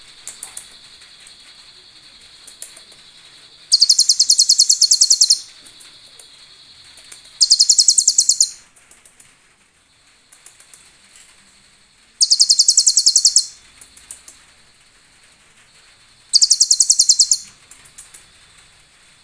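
Kolibri ninja sunbird (konin) singing: four bursts of a very rapid, high-pitched trill, each about a second and a half long, a few seconds apart. A faint steady high tone runs underneath.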